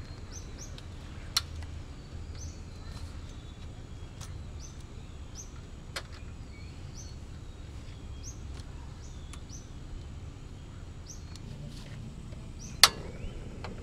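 Small birds chirping, short high notes about once a second, over a steady low background noise. Two faint clicks come early on, and a single loud sharp click near the end is the piezo igniter of a portable butane camping stove being turned.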